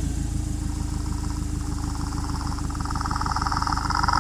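Intro sound effect: a steady, low, rapidly pulsing engine-like rumble, with sustained high tones swelling in over the last second and a half.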